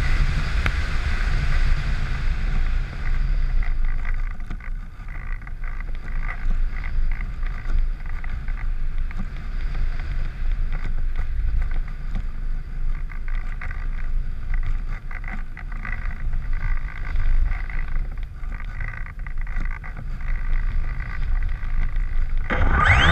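Wind rushing over the onboard microphone of a camera-carrying RC aircraft, with its electric motor and propeller buzzing. Near the end the motor throttles up and its pitch rises sharply.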